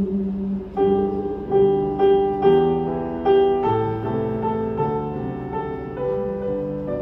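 Grand piano playing a closing instrumental passage: chords struck about every half second to a second, then fewer, longer notes left ringing.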